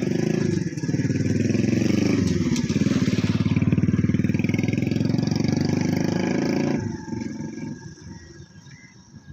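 A motorcycle engine running close by, its pitch dropping and rising again a couple of times as it changes speed, then falling away sharply about seven seconds in.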